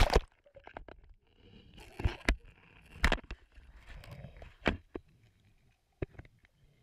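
Underwater camera plunging into a creek with a splash, then a handful of sharp, muffled knocks and clicks heard through its waterproof housing as it sinks and settles on the sandy bottom.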